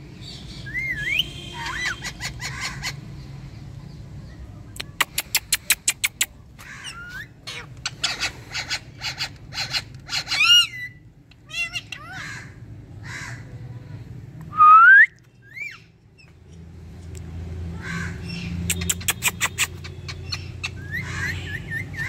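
Indian ringneck parakeets calling and chattering: rapid runs of sharp chirps and several rising whistles, the loudest whistle about 15 seconds in, over a low steady hum that gets louder near the end.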